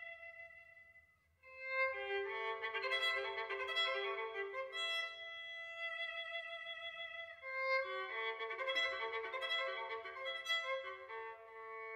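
Violin music: a held note fades away about a second in, then after a short gap the violin plays two lively phrases of quick notes with a wavering pitch, settling on a held note near the end.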